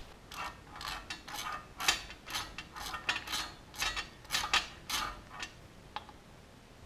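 Socket ratchet clicking in quick back-and-forth strokes, about two a second, loosening a small bolt on a pit bike engine. The strokes stop shortly before the end.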